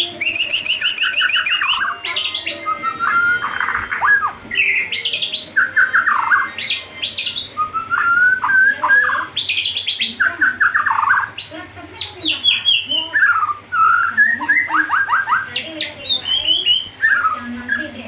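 White-rumped shama singing a varied song: phrase after phrase of rapid repeated notes, trills and whistled slides up and down, with short gaps between phrases.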